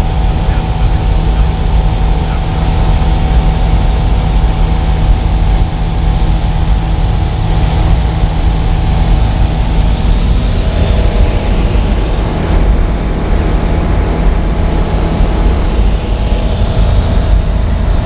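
Kitfox light aircraft's engine and propeller droning steadily in cruise, heard from inside the cockpit.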